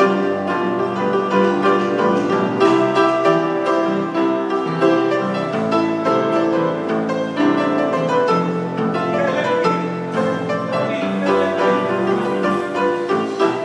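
Grand piano played solo: a continuous flowing tune over full chords, with many quick notes.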